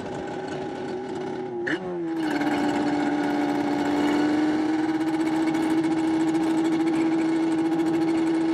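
Yamaha Banshee's 421cc two-stroke twin engine running at high revs. About two seconds in, the pitch dips sharply and settles lower, then holds and climbs slowly.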